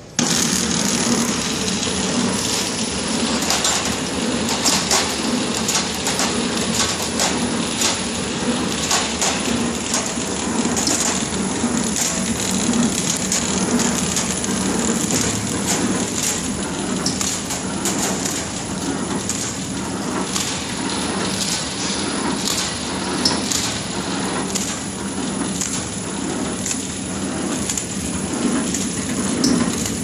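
Horizontal flow-wrap packing machine running as it wraps remote controls in film, a steady mechanical clatter with frequent small clicks.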